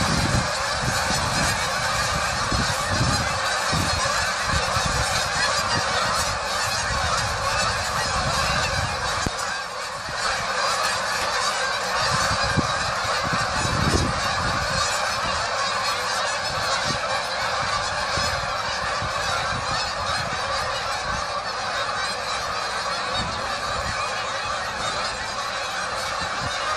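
A huge flock of migrating geese flying overhead, hundreds honking at once in a loud, continuous din.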